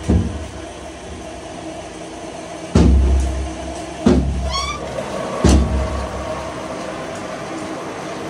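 Old lathe with a steady motor hum, broken by four heavy metal clunks as the four-jaw chuck is worked. There is a short rising squeak a little after halfway.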